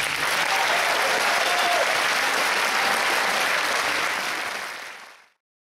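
Concert audience applauding, with a faint cheer or call over the clapping. The applause fades out and stops about five seconds in.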